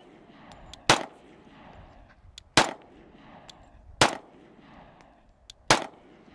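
Semi-automatic pistol fired at a slow, steady pace: four shots about a second and a half apart, each a sharp crack with a short echo trailing off.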